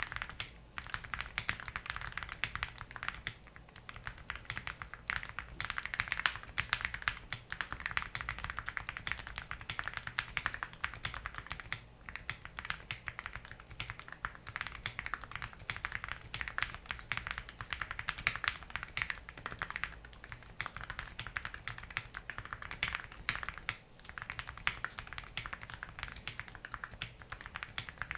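Steady fast typing on a mechanical keyboard fitted with Akko Rosewood linear switches: a dense, continuous run of keystrokes, with brief lulls about 12 and 24 seconds in.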